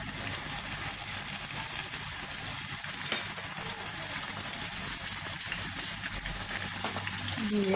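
Chopped vegetables and scrambled egg sizzling steadily in hot oil in a nonstick frying pan, with soy sauce and vinegar just added.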